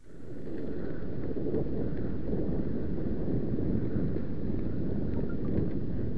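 Wind rumbling over the microphone of a camera riding on a moving mountain bike, steady and low, with faint ticks and rattles from the bike rolling over the path.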